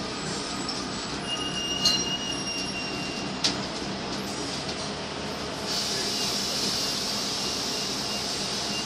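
Cabin noise of a New Flyer D40LFR transit bus with its Cummins ISM diesel running: a steady rumble and hiss with rattles, a thin high squeal lasting about two seconds from about a second in, and a sharp click about three and a half seconds in. From about six seconds in the hiss grows louder.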